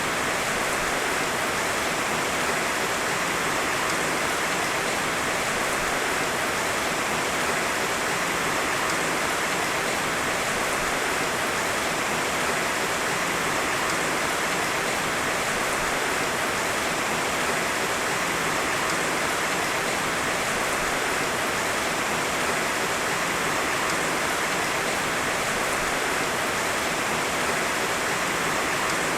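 Heavy rain falling steadily, an even rushing hiss with no thunder.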